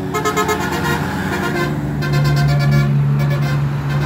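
A bus's 'telolet' multi-tone air horn tooting its tune in two stretches, the second starting about halfway through, over a steady bus engine.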